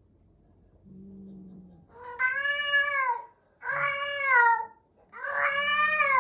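A domestic cat gives a short low growl, then three long, drawn-out yowls, each rising and then falling in pitch. It is the upset yowling of a cat faced with a newly introduced cat.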